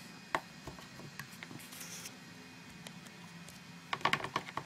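Faint handling sounds of painted cardstock being shifted on a work surface: a few soft taps, a brief rustle about a second and a half in, and a quick run of clicks about four seconds in.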